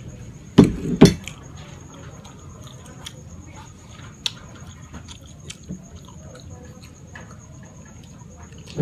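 Close-miked mukbang eating sounds: a mouthful of fettuccine carbonara being chewed, with two loud wet mouth sounds about half a second and a second in, then soft scattered mouth and cutlery clicks.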